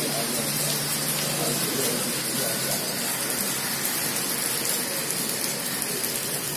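Heavy rain falling steadily on a wet paved square, a continuous even hiss.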